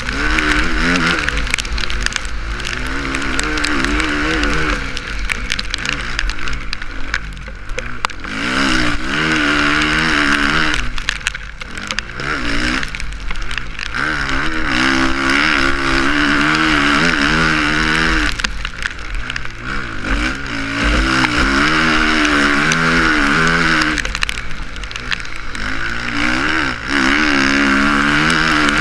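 Suzuki RM-Z450's four-stroke single-cylinder engine revving up and falling back again and again as the motocross bike is ridden hard, with a couple of brief lulls where the throttle is shut.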